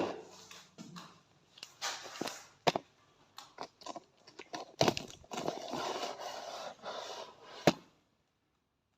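Hand work on rusty metal parts: intermittent scraping and rustling with scattered clicks, and a sharp click near the end.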